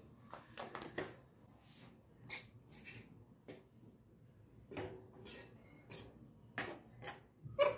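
A metal spoon stirring a dry, crumbly ragi flour mixture in a steel pan as it roasts, giving scattered scrapes and clinks of spoon on metal, about a dozen spread unevenly.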